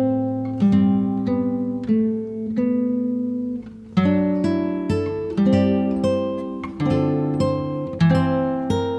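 Instrumental background music of plucked-string chords, each struck and left to ring, at a steady pace; a short quieter dip just before the middle, then fuller, louder chords.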